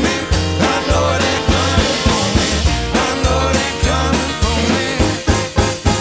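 Bluegrass band playing a song live, with steady driving rhythm: acoustic guitar, upright bass, mandolin, fiddle, banjo and drums under a male lead vocal.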